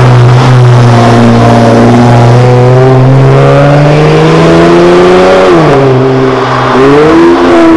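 Dodge Charger SE AWD's 3.6-litre V6 engine under hard acceleration, loud, its note climbing steadily. About five and a half seconds in the pitch drops, then it climbs quickly again near the end.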